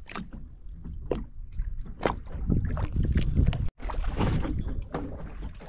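Boat noise on open water: a low rumble of wind and water against the hull, with scattered knocks. The sound cuts out for an instant about two-thirds of the way through.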